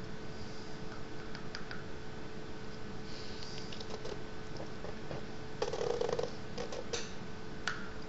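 Light clicks and taps of a wooden drawing stick against a small glass ink bottle as it is dipped, and its tip scratching on paper, with a cluster of taps and scrapes a little before the end. A faint steady hum runs underneath.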